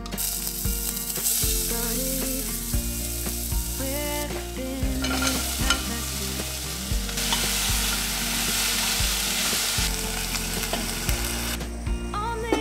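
Chopped onion sizzling as it fries in a hot stainless steel saucepan, stirred with a wooden spoon. The sizzle cuts off near the end as the lid goes on.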